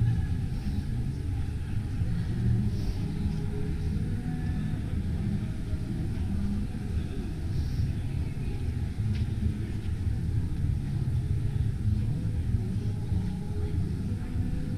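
Steady low rumble of background noise in a large exhibition hall.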